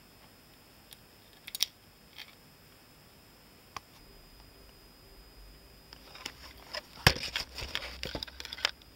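Handling noise from small metal revolver parts. A few scattered light clicks come first, then a busy run of clicks and rustles in the last three seconds, loudest about seven seconds in.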